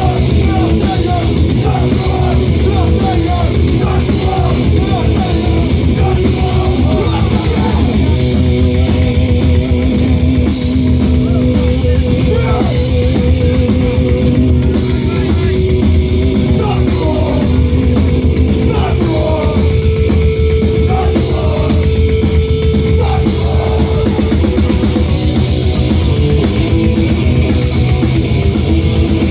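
Punk rock band playing live: loud distorted electric guitars, bass and drums running on continuously, with held guitar notes and bending lines over the beat.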